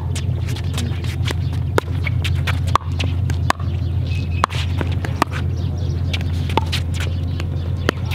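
Pickleball rally: sharp pops of paddles hitting a plastic ball, about one a second, with footsteps on the hard court, over a steady low hum.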